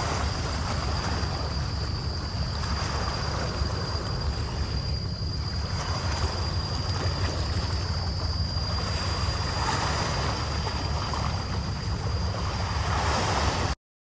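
Small sea waves washing against a rocky seawall, with wind buffeting the microphone as a low rumble and a thin steady high-pitched tone above it. The sound cuts off suddenly near the end.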